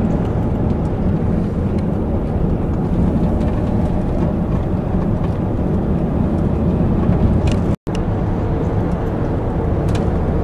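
Steady rumble of a moving road vehicle, engine and road noise with no speech, cut off briefly by a short dropout near the end.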